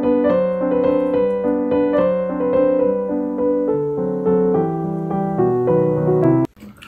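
Background solo piano music playing a melody, cutting off abruptly near the end.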